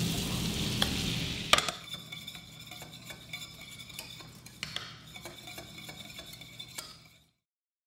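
Melted butter sizzling in a stainless steel pan as flour goes in. A sharp clink about a second and a half in, then a wire whisk scraping and ticking against the pan as it stirs the roux.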